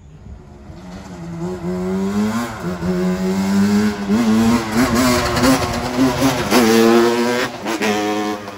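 A motor vehicle engine revving up and down several times, growing louder over the first couple of seconds.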